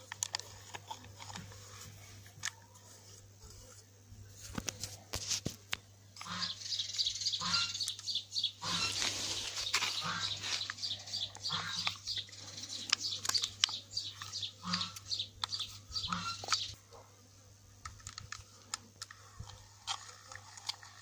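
Small birds chirping and chattering for about ten seconds in the middle, over scattered sharp clicks and taps and a steady low hum.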